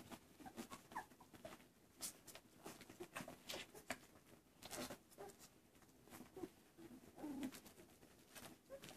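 Nursing golden retriever puppies making faint, short squeaks and grunts scattered among small clicks as they feed at their mother.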